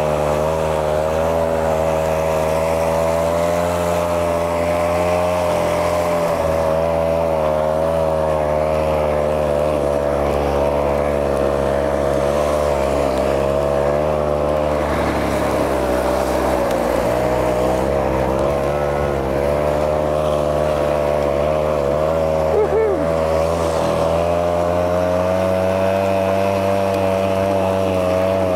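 Small engine of a motorized ski track drive running steadily under load, its pitch wavering slightly as the rider moves through snow.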